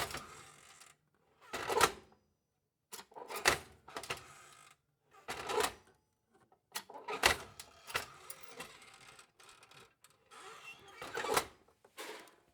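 Old stove's metal hinges being worked, giving about six separate metallic creaks and clanks with short pauses between them.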